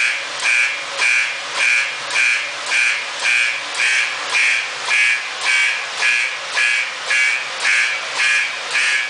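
Simplex fire alarm horns sounding in loud, even pulses a little under two a second, set off by a Standard Electric Time UAX-3 fire alarm system.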